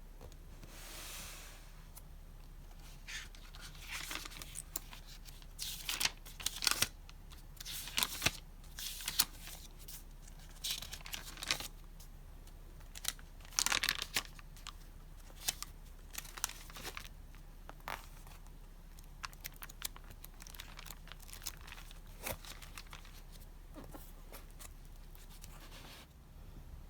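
Paper and packaging being torn open and crinkled by hand, in irregular crackling bursts with short pauses between.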